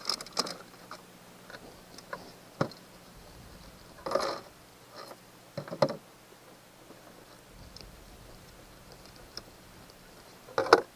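Scattered clicks and knocks of a multi-tool's knife blade tapping and cutting peeled shrimp against a cutting board. A few louder knocks come near the start, about four and six seconds in, and just before the end.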